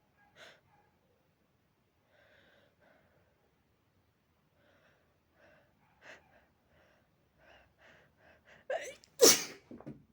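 A person's allergic sneeze from a dog allergy. A run of short catching breaths comes faster and faster, then one loud sneeze lands near the end.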